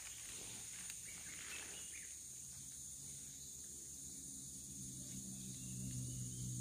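Forest insects buzzing in a steady high drone, with leaf-litter rustling in the first two seconds. A low steady hum comes in about two seconds in and grows slightly louder.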